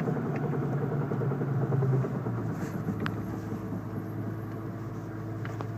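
A 1997 Jeep Grand Cherokee driving, with its engine hum and a rumbling drivetrain noise; the engine note drops about two seconds in as the Jeep slows.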